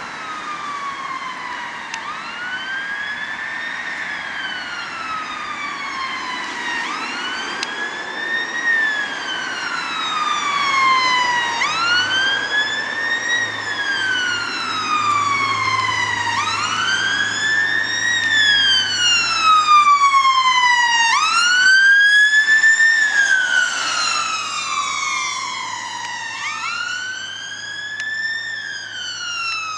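Dutch ambulance siren in a slow wail, the pitch rising and falling about once every four to five seconds without a break. It grows louder as the ambulance approaches, is loudest about two-thirds of the way in, then fades a little as it moves off, with a low engine hum underneath.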